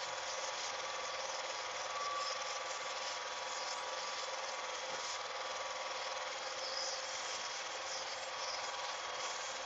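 Home-movie film projector running steadily, its motor and film transport making an even mechanical whir.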